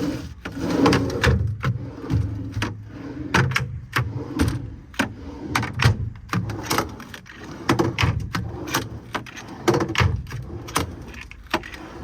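Metal service-body drawers and compartment hardware being handled: a long run of irregular sharp clacks, knocks and rattles over a low rumble.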